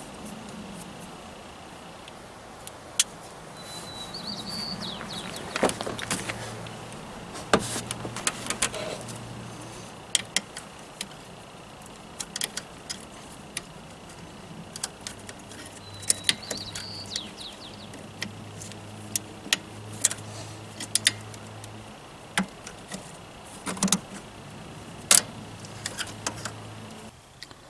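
Scattered sharp clicks and light rattles of hands working a throttle cable loose from the throttle body linkage of a 1993 Chevy K3500, with the engine off.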